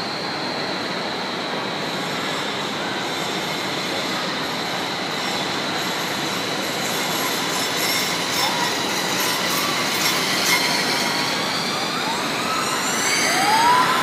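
Indoor roller-coaster car running along its steel track: a steady rolling rumble that grows louder near the end, with a few rising high squeals over it in the last couple of seconds.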